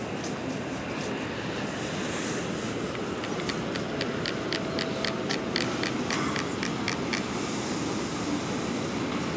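Steady reverberant background hum of a large railway station hall. Through the middle few seconds comes a run of quick, evenly spaced ticks, about four a second.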